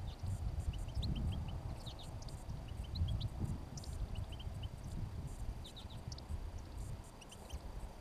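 Small finches calling, scattered clusters of short, quick high chirps throughout. Wind rumbles on the microphone underneath, easing toward the end.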